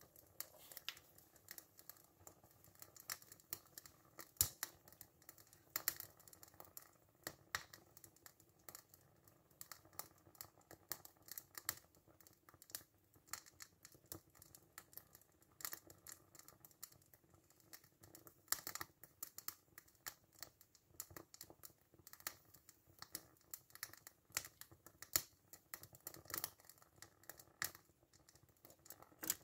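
Faint, irregular ticks and crackles, several a second, from a small toy steam engine being warmed up over a Sterno fuel tray for its first steaming.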